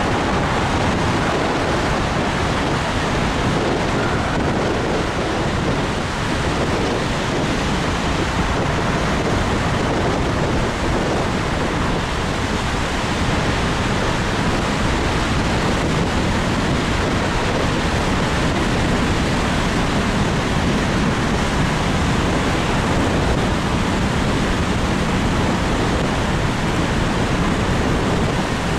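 Steady noise of a car driving through a road tunnel, its engine and tyre noise running unbroken and even throughout.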